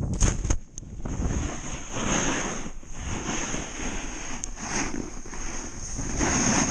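Wind rushing over an action camera's microphone while snowboarding, with the board sliding over snow; the rushing swells and dips every second or so.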